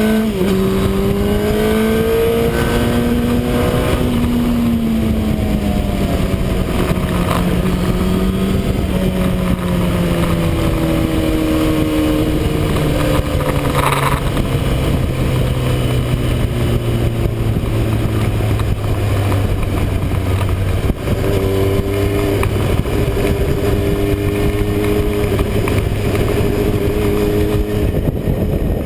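Motorcycle engine running under way, heard from on the bike over a heavy rush of wind on the microphone. The engine note rises briefly at first, then falls slowly as the bike slows, and evens out after a short dip about two-thirds of the way through.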